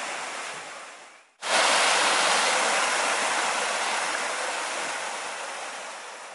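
Water pouring over a small stone weir and churning on the rocks below, a steady rushing noise. It fades almost away, cuts back in loud about a second and a half in, then slowly fades toward the end.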